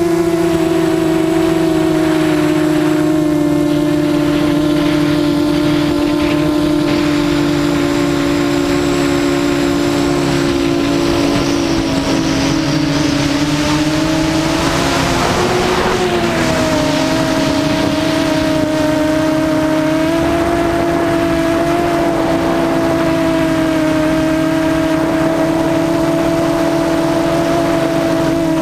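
Brushless electric motors and propellers of a small multirotor drone whining steadily, heard up close from the on-board camera. The pitch wavers and dips briefly about halfway through, with a rush of air noise.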